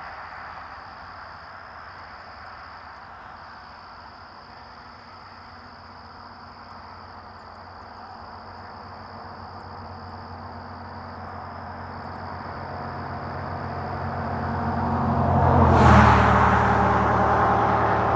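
A car passing by on a highway. Its tyre and engine noise swells slowly over several seconds, peaks as it goes past about three-quarters of the way through, and stays loud as more traffic follows near the end.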